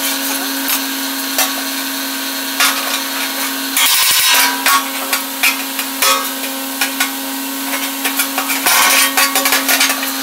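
Knocks, rubs and metal clatter as a stainless steel grill hood is handled and lifted off its hanging rig, with louder scraping bursts about four seconds in and near the end. Under it, a steady electric hum from a shop fan.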